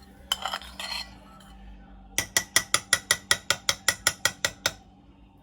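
Kitchen utensil work: a short scrape against a bowl, then a quick, even run of about fifteen sharp clicks, roughly six a second, that stops abruptly.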